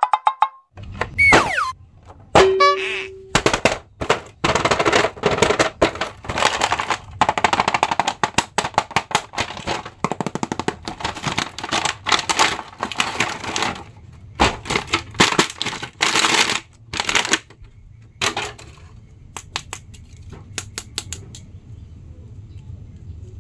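Cardboard toy box and clear plastic blister packaging being handled and opened: dense, rapid crackling and crinkling, easing into a few scattered lighter clicks near the end. A couple of brief tones, one falling in pitch, sound in the first few seconds.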